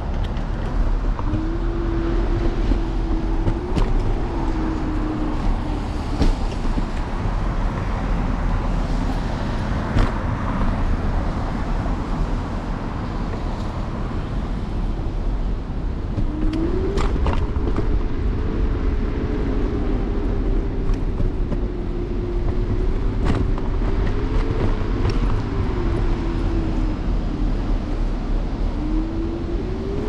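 Electric scooter motor whining from the handlebars, its pitch rising as the scooter speeds up (about a second in, again midway and near the end) and sagging as it slows, over steady wind and road rumble. A few sharp knocks from bumps in the road.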